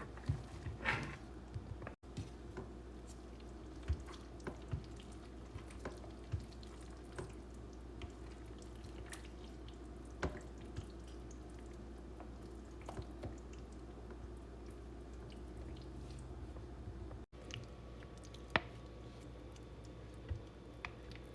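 Slow cooker of chicken spaghetti sauce cooking: soft, irregular drips and pops over a steady low hum. The sound drops out abruptly twice.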